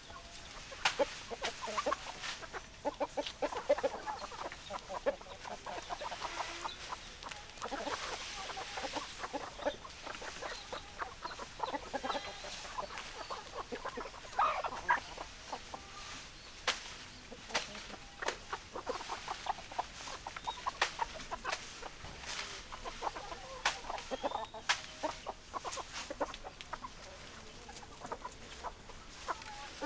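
Chickens clucking, with many short calls overlapping throughout and frequent sharp clicks between them.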